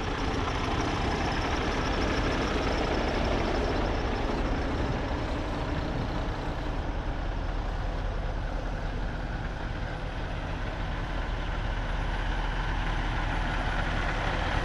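Heavy diesel trucks idling: a steady low rumble with a faint even hum above it.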